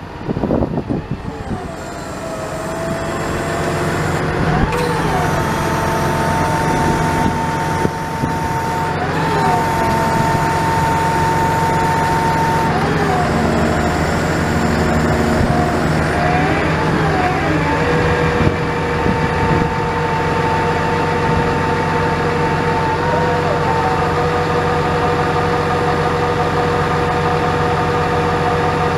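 The truck's 6.7 L inline-six turbo diesel idles steadily, with a higher whine over it that glides up and down in pitch every few seconds while the engine speed stays the same.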